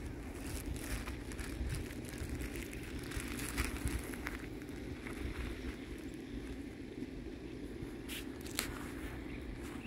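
Wind rumbling on the microphone, with faint scattered crackles and rustles and a couple of sharper ticks near the end.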